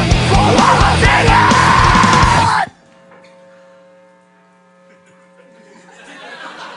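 Live heavy rock band playing loudly, with distorted electric guitar, drums and shouted vocals, stopping dead together about two and a half seconds in. After the stop a faint steady hum hangs on.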